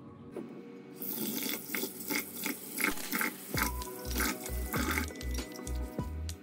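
Tap water running into a bowl of lentils in a kitchen sink as hands swish and rinse them. Background music plays over it, with a steady bass beat coming in about halfway through.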